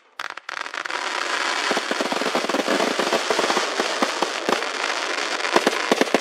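Fireworks display: a few sharp pops, then from about half a second in a dense, continuous crackle of bursting glitter shells, with louder sharp bangs scattered through it.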